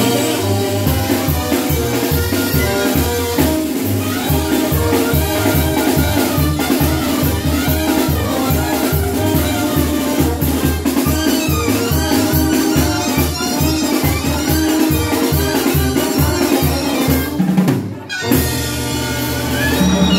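Live dance band playing: trumpets and trombone over a drum kit and bass line with a steady, quick dance beat. The music breaks off for a moment about 18 seconds in and comes straight back.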